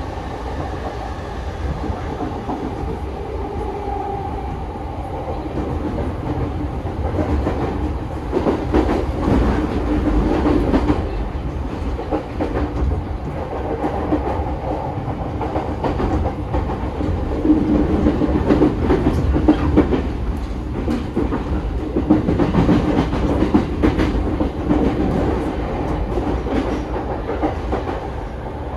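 Running noise heard inside a JR East E231-500 series motor car with a Mitsubishi IGBT VVVF drive, under way: a steady rumble of wheels on rail with a hum from the traction motors. Clicks from wheels crossing rail joints come through, and the noise grows louder in stretches.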